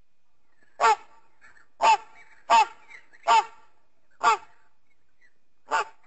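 Sound-effect calls made for the extinct giant flightless bird Dromornis stirtoni: six short, loud, pitched calls, each under a quarter of a second, coming at uneven intervals with a longer gap before the last.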